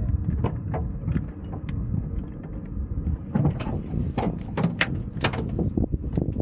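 Glider seat harness being unbuckled and its straps pulled off, the metal fittings clicking and rattling in quick short knocks, most of them between about three and five and a half seconds in, over a steady low rumble of wind on the microphone.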